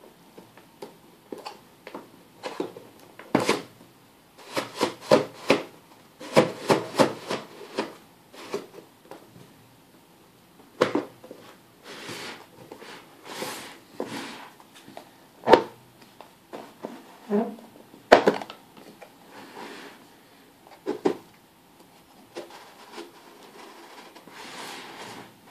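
Plywood combination-lock discs on a laser-cut wooden box being pulled out, turned and pushed back in: a string of short wooden clicks and knocks with some rubbing scrapes, coming in quick runs a few seconds in and more scattered after.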